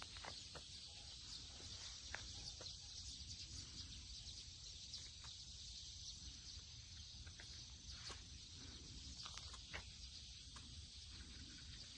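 Faint outdoor ambience: a steady high-pitched insect chorus, such as crickets, over a low rumble, with scattered small clicks.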